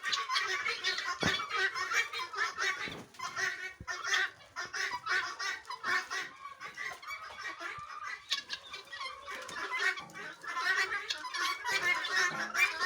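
A flock of hens clucking, many short calls overlapping without a break.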